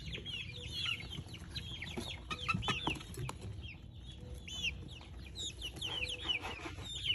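A flock of young Cochin and Appenzeller Spitzhauben chickens peeping without a break: many short, high, falling chirps overlapping one another.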